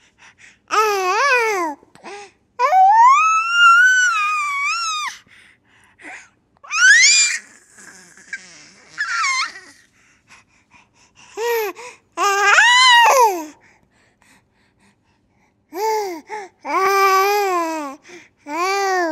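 A baby squealing, giggling and babbling in a series of short high-pitched bursts with silent pauses between them; one squeal is drawn out for a couple of seconds early on.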